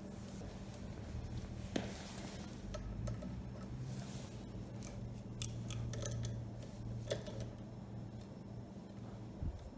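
Small wrenches clicking and scraping on the carburetor fittings of a small scooter engine that is not running, a few sharp metallic clicks in all, over a low steady hum.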